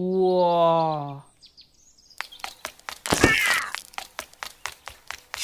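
Dubbed cartoon sound effects: a short pitched, voice-like tone lasting about a second and sliding slightly down, then, after a pause, a quick run of light clicks and knocks, about four a second, with a brighter chirping sound in the middle.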